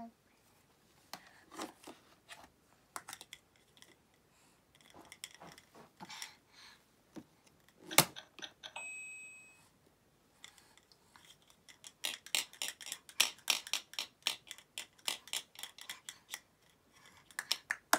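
Hard plastic toy kitchen and plastic balls handled by a toddler: scattered clicks and taps, a sharp click about eight seconds in followed by a brief electronic tone from the toy, then a long run of rapid clicking near the end.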